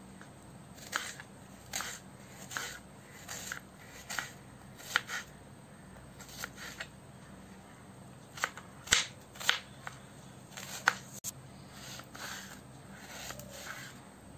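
Kitchen knife chopping an onion on a cutting board: single knocks of the blade through the onion onto the board, roughly one a second, with a quicker run of cuts about nine seconds in.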